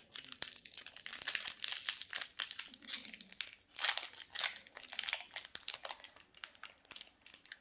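Foil wrapper of a Magic: The Gathering collector booster pack crinkling in irregular bursts as it is handled and torn open by hand.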